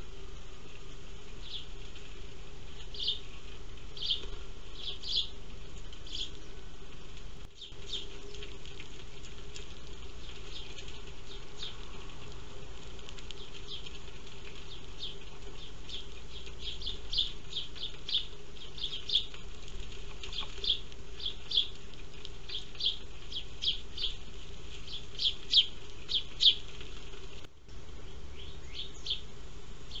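Sparrows chirping in short, irregular notes over a steady low hum, sparse at first and then quick and busy through the second half. The sound cuts out briefly twice.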